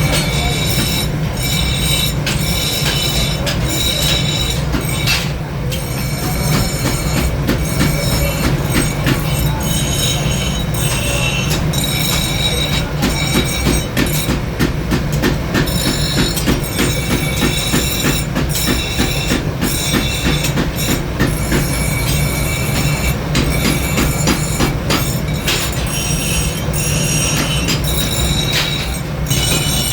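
Steel being worked in a blacksmith's shop: rapid metal-on-metal strikes with high ringing tones, over a steady low hum.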